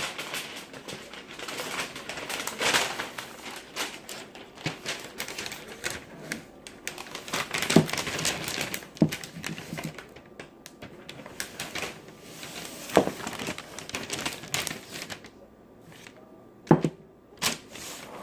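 Paper rustling and crinkling as it is handled and spread out, mixed with irregular sharp clicks and knocks of things being moved and set down on a table; the rustling is denser in the first half, the knocks more separate in the second.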